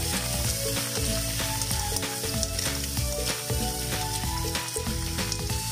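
Half-shelled mussels sizzling in hot margarine with garlic and onion in a wok as they are stirred with a spatula; a steady frying hiss.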